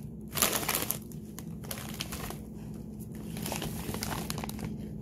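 A foil-lined Lay's potato chip bag crinkling as it is handled, loudest in the first second, then lighter rustling.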